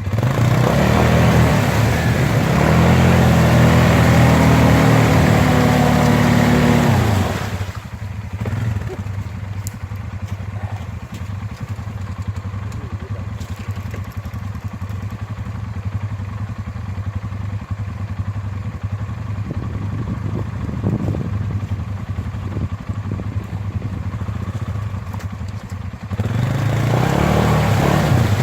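ATV engine revved hard and held at high revs for about seven seconds, then dropping back to a low idle, and revving up again near the end.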